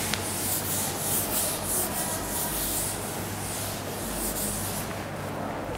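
Chalkboard duster rubbing chalk off a chalkboard in repeated back-and-forth wiping strokes.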